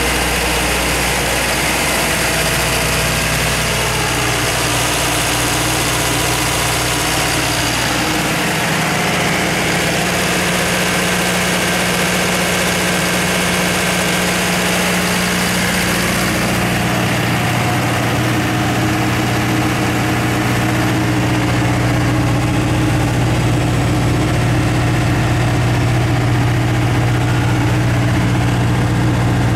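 Cummins QSB5-G7 diesel engine of a Doosan G70 generator set running steadily with no load, a continuous loud drone whose tone shifts a little about eight and seventeen seconds in.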